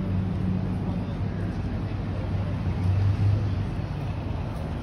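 An engine running at low speed, a steady low hum that grows a little louder about three seconds in, then eases off.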